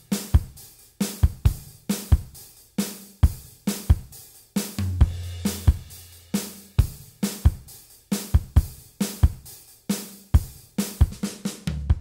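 Background music: a steady drum-kit beat with kick, snare and hi-hat.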